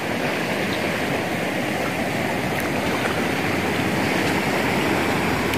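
Steady rush of sea surf on the shore, even and unbroken, with a few faint clicks over it.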